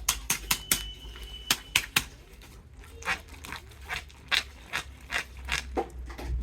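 Irregular sharp clicks and taps of small plastic pieces being handled, about three a second.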